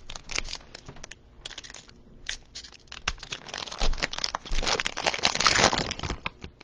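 Crinkling and rustling of trading-card packaging and cards being handled: scattered crackles, then a dense run of quick crinkles about three and a half seconds in.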